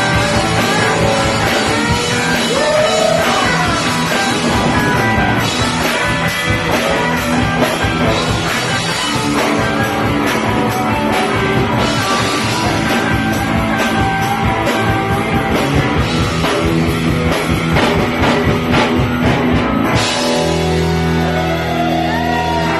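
Live punk rock band playing loud: electric guitars, bass and drum kit with shouted vocals. About twenty seconds in the drumming drops out and a held chord rings on.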